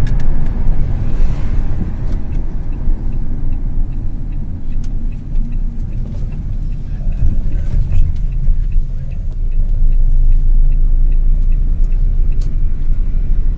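Steady low rumble of a car driving along a road, heard from inside the cabin: road and engine noise.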